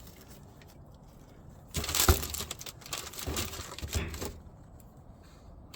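Sneaker packaging being handled, with a few bursts of crinkling and rustling in the middle and one sharp knock about two seconds in.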